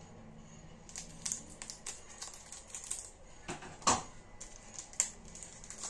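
Scissors snipping open a foil trading-card booster pack, with the wrapper crinkling and crackling in the hands. A run of short sharp crackles and snaps, the loudest about four seconds and five seconds in.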